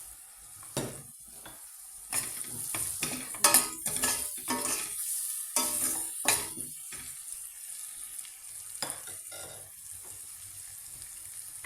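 Onions frying in oil in a pan with a steady sizzle, while a utensil stirs them and knocks and scrapes against the pan, mostly between about two and seven seconds in.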